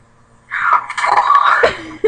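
A girl's loud, breathy vocal outburst, about a second and a half long, starting half a second in.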